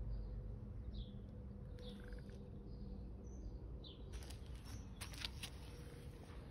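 Low rumbling rub and rustle of a tabby cat's fur against the phone's microphone, with a few sharp clicks about four to five seconds in. Faint, brief bird chirps sound a few times in the background.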